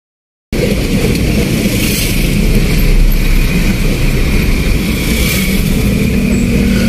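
Steady rumble of a moving road vehicle, engine and road noise, cutting in abruptly about half a second in. A low steady hum joins near the end.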